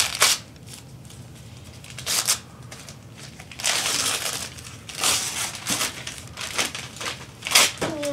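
Christmas wrapping paper being torn and crumpled by hand in a string of short rustling bursts, the longest about three and a half seconds in.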